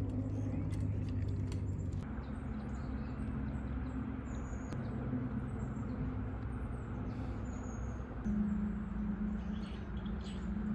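Outdoor ambience: a steady rushing background with a low hum, and birds chirping faintly now and then.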